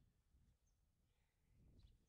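Near silence: faint outdoor background noise with a low rumble, and one brief faint high chirp near the end.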